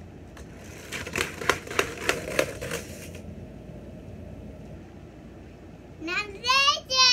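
A run of quick plastic clicks and rattles as a child works a toy car at the base of a plastic car track. Near the end comes a loud, high-pitched child's shout that rises and is held.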